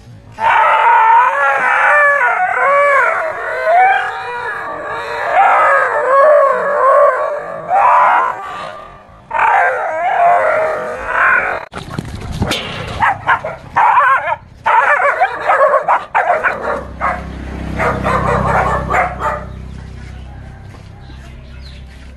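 A frightened dog yelping, whining and howling: a string of high, wavering cries with short gaps. Near the middle come a few sudden sharp sounds, and a low rumble sits under the last few seconds.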